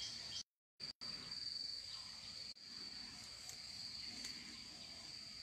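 Insects chirring in one steady high-pitched tone, over faint outdoor hiss; the sound cuts out briefly twice near the start.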